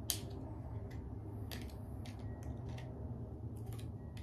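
Scattered clicks, taps and brief rustles of small objects being handled on a tabletop, the sharpest one just after the start, over a steady low hum.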